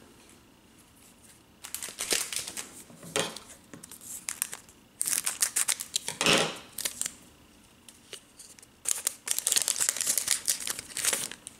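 Shiny foil wrapper of a Tim Hortons hockey card pack being torn open and crinkled by hand, in three bouts of crackling rustle.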